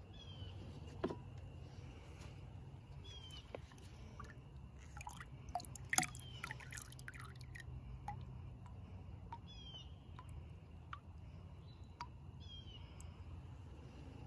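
Metal ladle dipping into a bucket of sugar water, with small splashes, drips and clicks, busiest about midway. A bird chirps in short quick series several times.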